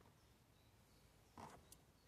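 Near silence, with one faint short knock about one and a half seconds in and a tiny click just after.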